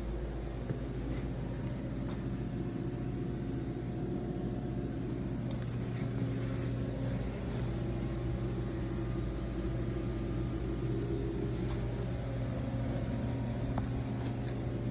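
Jeep Wrangler JK engine idling steadily, its exhaust giving a low, even drone.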